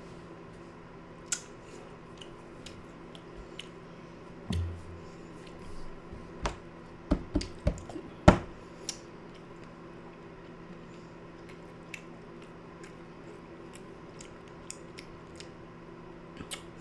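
A person chewing a mouthful of sausage and grits, with scattered soft mouth clicks. A few sharper knocks come about six to nine seconds in, over a steady low hum.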